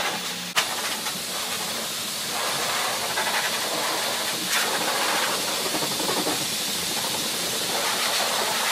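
High-velocity pet dryer blowing air through its hose and nozzle onto a poodle's coat: a steady, loud rush of air that swells and shifts a little as the nozzle moves, with a brief dip about half a second in.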